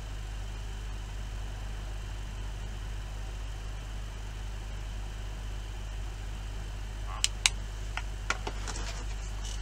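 Steady low electrical hum throughout. Several light clicks and taps come about seven seconds in, as small objects are handled on the workbench.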